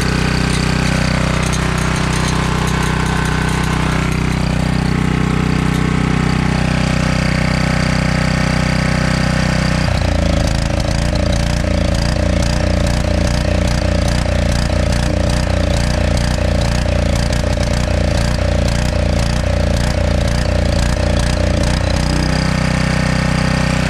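Portable generator's Honda engine running steadily, then surging and hunting unevenly for about twelve seconds before settling back to a steady run. The owner puts the poor running down to an oil-saturated air filter choking the engine of air.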